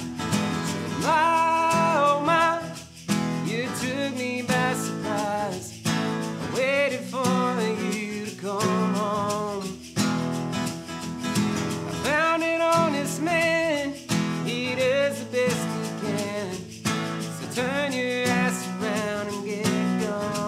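Acoustic country-folk band playing an instrumental break: strummed acoustic guitars and electric bass under a lead melody in short phrases with sliding notes.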